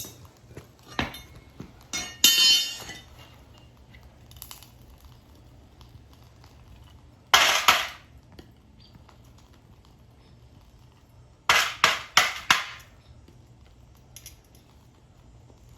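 Metal clinking and clanging while scrap brass is melted down for pouring. There is a rattle about two seconds in, a loud clank in the middle, and a quick run of four strikes near the end, over a low steady hum.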